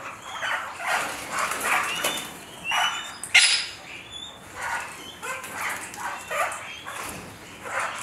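Parrots calling: many short calls in irregular succession, with one louder, shriller call about three and a half seconds in.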